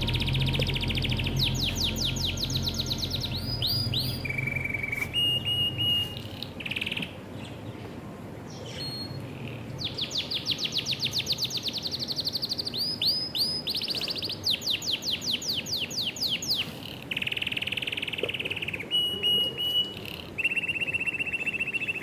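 A pair of budgerigars chirping and chattering in quick runs of rapid chirps, broken by short steady high notes.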